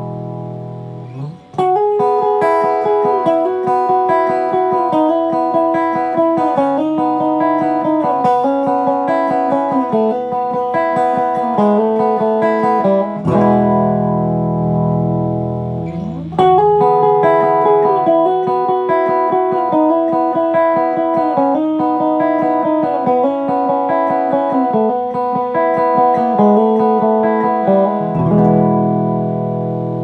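Electric guitar played through an MXR Boost/Line Driver pedal with the boost switched on: a held low chord, then single-note melodic lines with a few bent notes. The held chord returns about halfway through and again near the end.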